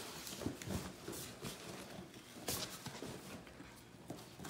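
A Great Dane chewing and tearing at a cardboard shipping box: irregular scraping and crackling of cardboard, with a sharper rip about two and a half seconds in.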